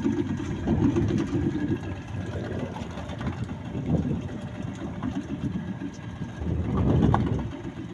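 Small outboard motor of a wooden fishing boat running at low speed, swelling louder about seven seconds in.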